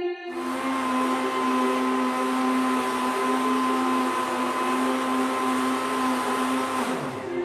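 High-powered countertop blender running at a steady high speed, puréeing a thick blueberry and soaked-cashew cream. It switches on just after the start and winds down, falling in pitch, shortly before the end.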